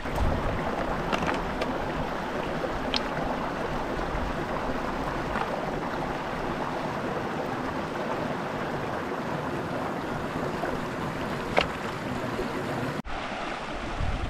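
Shallow mountain stream running over stones: a steady rush of water, with a few short clicks standing out from it.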